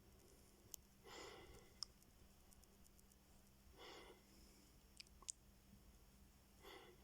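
Soft, faint snoring: three slow breaths about three seconds apart, with a few faint clicks in between.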